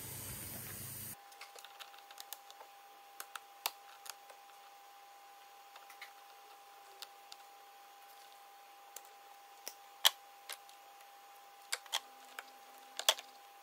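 Scattered faint clicks and taps of hands and tools on a plastic coolant header tank and its hose clips as the hoses are worked off, a few sharper clicks standing out, over a faint steady tone.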